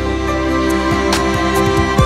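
Background music: sustained string chords over deep bass hits that drop in pitch.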